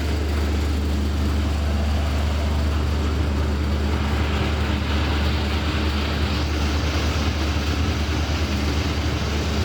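Steady low mechanical hum and drone of running machinery, with no break and no distinct impacts.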